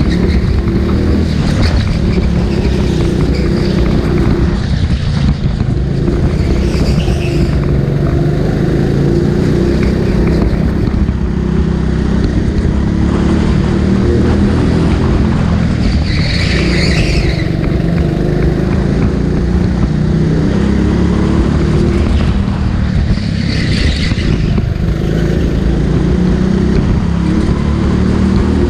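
Go-kart engine running hard around a track, its pitch rising and falling with throttle through the corners, with a few brief high squeals now and then.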